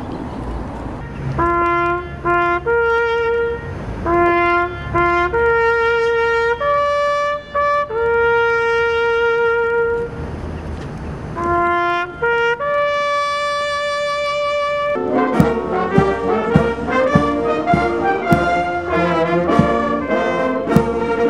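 A solo bugle sounds a ceremonial call of long held notes, stopping about twelve and a half seconds in. About two seconds later a brass band with drums starts playing.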